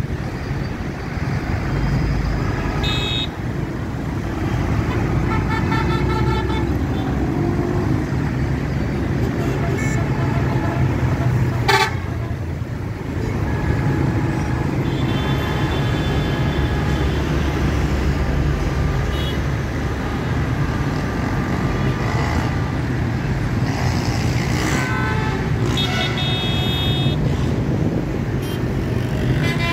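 Heavy stop-and-go road traffic: a steady low rumble of car, bus and motorcycle engines with horns honking again and again, sometimes several at once. A single sharp knock sounds about twelve seconds in.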